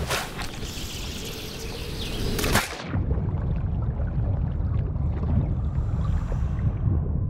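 Water splashing and fizzing at the surface for the first couple of seconds, ending in a sharp splash. After that, the muffled low rumble of water as heard through an underwater camera.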